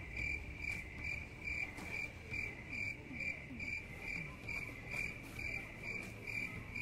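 Cricket chirping: a single high chirp repeated evenly, about two and a half times a second. It starts and stops abruptly with the picture montage, as an edited-in 'crickets' sound effect would.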